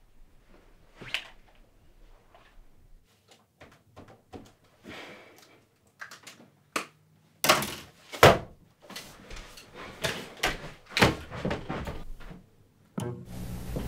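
Irregular knocks, clicks and thuds of objects being handled on a small wooden desk, faint at first and louder from about halfway, with a few hard thumps. A steady low hum starts suddenly near the end.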